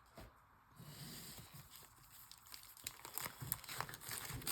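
Faint crinkling and small clicks of trading-card pack wrappers being handled, getting busier about three seconds in.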